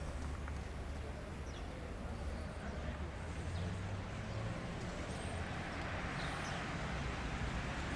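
Outdoor ambience: a steady low rumble with a few faint, brief bird chirps now and then.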